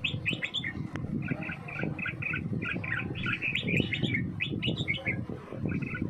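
Red-whiskered bulbuls chirping in quick runs of short notes, with a brief pause about five seconds in, over a steady low rumble.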